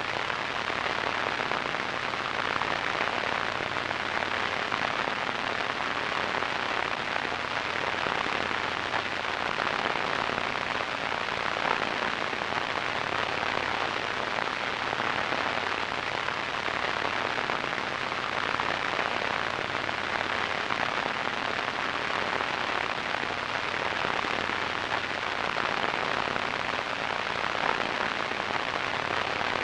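Radio static: a steady, even hiss with fine crackle, strongest in the middle range and dull at the top, unchanging in level.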